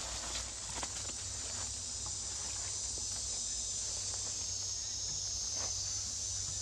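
Steady high-pitched insect chorus, with scattered short rustles and soft clicks from a young monkey moving through dry leaves and clambering on a plastic bucket.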